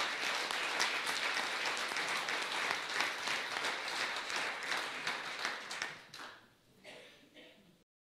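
Audience applauding. The clapping dies away about six seconds in, and the sound cuts off to dead silence near the end.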